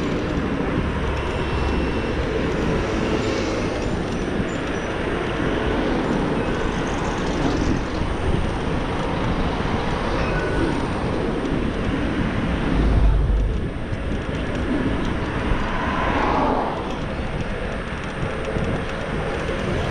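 Steady wind rush and road noise on the microphone of a Xiaomi Mi Pro 2 electric scooter riding along a city street, with car traffic passing. A brief heavy low thump about 13 seconds in.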